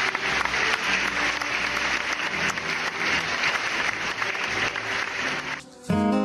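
A crowd applauding, dense clapping over soft background music. The applause cuts off suddenly near the end, and strummed acoustic guitar music begins.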